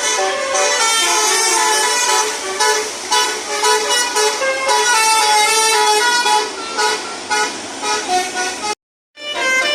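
Basuri musical vehicle horn playing a tune, several horn tones sounding together and stepping from note to note. It cuts out briefly about nine seconds in, then starts again.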